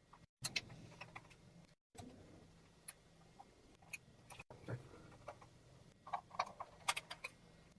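Faint, scattered small clicks and ticks of a small Phillips screwdriver turning out the screws of a camcorder's plastic base, with a cluster of louder clicks about six to seven seconds in. The sound drops to dead silence briefly a few times.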